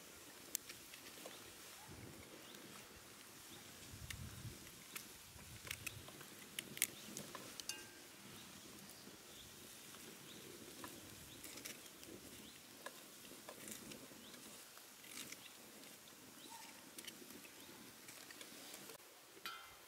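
Faint, scattered clicks and taps of a kitchen knife cutting through a vegetable held in the hand, with pieces dropping into metal pots.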